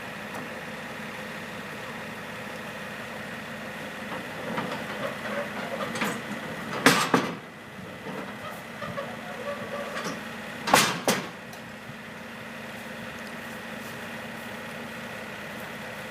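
Excavator engine idling steadily, with a stretch of rattling and two loud clanks, about seven seconds in and again about four seconds later.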